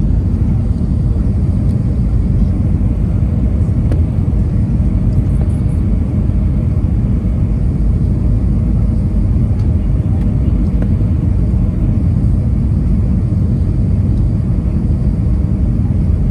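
Steady low rumble of a jet airliner's cabin during the approach to landing, with the flaps extended: engine and airflow noise heard from a window seat over the wing.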